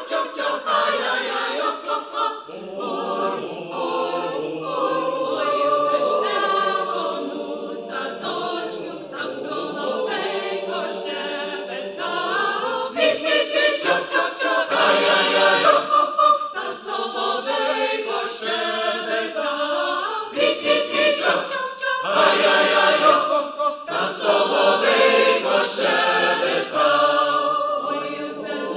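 Mixed choir of men's and women's voices singing a cappella, many home-recorded voice parts layered into one sustained, harmonised sound.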